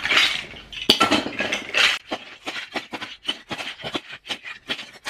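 Plastic toy building blocks clattering and clicking as they are gathered off the floor by hand and dropped into a storage box. A denser clatter comes in the first two seconds, then a quick run of separate clicks, about three or four a second.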